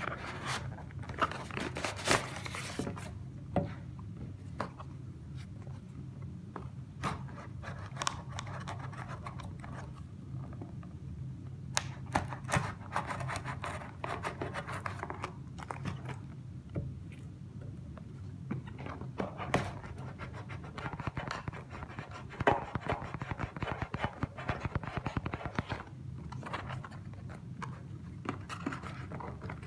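Scratching and scraping on a cardboard shipping box as fingernails pick at its packing tape, with plastic mailer rustling at the start and a knife slicing the tape near the end. Irregular clicks and scrapes run over a steady low hum.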